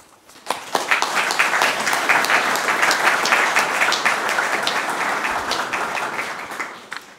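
Audience applauding. The clapping starts about half a second in, holds steady, and dies away near the end.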